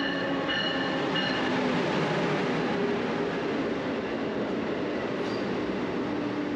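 Amtrak train running on the rails: a steady rushing rumble, with a pulsed ringing tone that stops about a second in.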